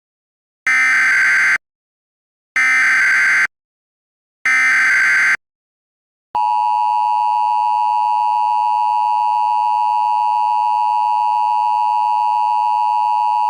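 Emergency Alert System SAME header: three bursts of data tones, each about a second long, followed about six seconds in by the steady two-tone EAS attention signal (853 and 960 Hz).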